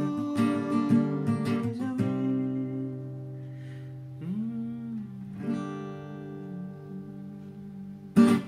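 Acoustic guitar strummed in chords, then the chords left to ring as the song closes, with a short vocal note about four seconds in. A single sharp, loud strum comes near the end and rings away.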